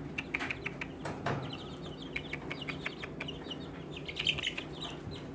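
Young chickens peeping and chirping in a brooder: many short, high peeps in loose clusters, with one brief knock about a second in.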